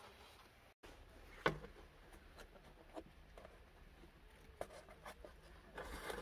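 Quiet handling sounds: soft rustling and light taps as baked flatbreads are stacked on a sheet, with one sharper tap about one and a half seconds in.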